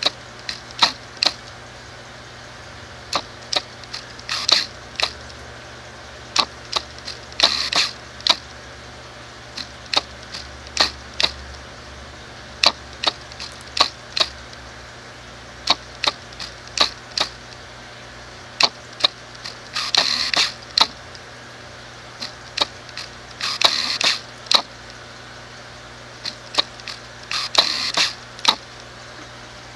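Sharp, irregular clicks and cracks with a few short crunching bursts among them: a narrow-bridged musk turtle biting and crushing a crab's shell underwater.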